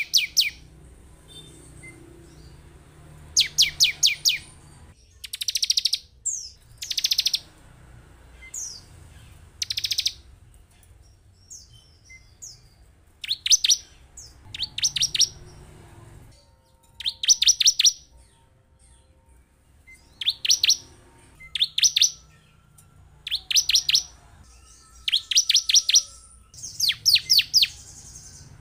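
Bar-winged prinia (ciblek) calling: loud bursts of rapid, high, sharp notes, each burst about a second long, repeated every couple of seconds.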